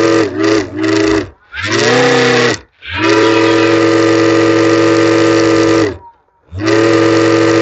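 Small DC motors spinning plastic propellers on homemade styrofoam RC boats: a loud, steady whine switched on and off by remote. It dips twice in the first second or so, cuts out briefly near the middle, and stops for about half a second later on, rising in pitch each time it spins back up.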